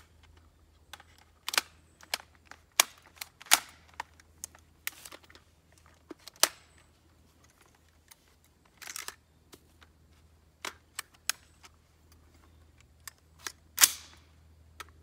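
Bushmaster AR-15 rifle fired in irregular single shots that never run into a bump-fire string, with sharp metallic clicks of the action between them. The loudest shot comes near the end.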